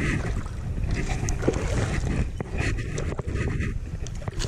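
Steady low rumble of wind and water around a fishing kayak, with scattered light knocks and clicks from rod and hull handling.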